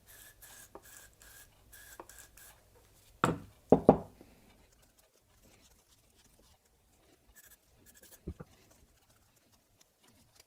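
Faint scratching and rubbing as the inside of a bicycle pedal body is worked over with a rag-covered plastic spatula. Two louder knocks come a little over three seconds in.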